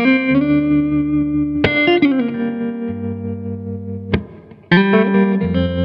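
Background music: sustained, effects-laden electric guitar chords that change every second or two, with a few sharp hits and a brief drop in level about four and a half seconds in.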